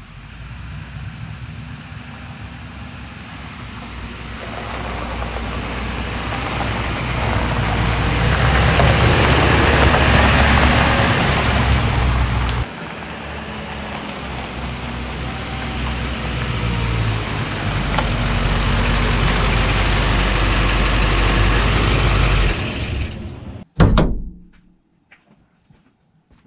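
A 2008 Chevrolet Duramax pickup's 6.6-litre V8 turbodiesel running, with its tyres on gravel, the truck getting louder as it comes closer over about ten seconds. After a sudden break it is heard again drawing nearer. Near the end the sound cuts off, followed by one sharp thump and a few faint clicks.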